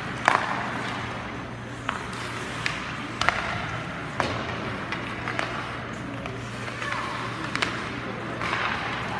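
Sharp knocks and clacks from play in an indoor arena, scattered irregularly, about ten in nine seconds, over a steady low hum and crowd haze. A few faint shouts come near the end.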